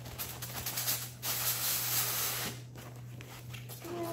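Rustling and rubbing of packaging as a small printed cardboard product box is handled and turned over, loudest from about a second and a half to two and a half seconds in.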